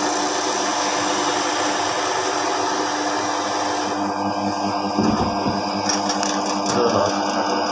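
Small homemade wood lathe running steadily while a hand chisel cuts a wooden spinning top, with a low knock about five seconds in and another knock with a few clicks near the end.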